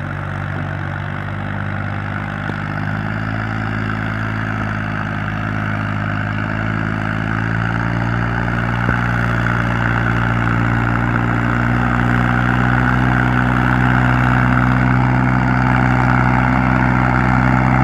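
Tractor engine running steadily: a low even drone with a higher whine above it, slowly getting louder.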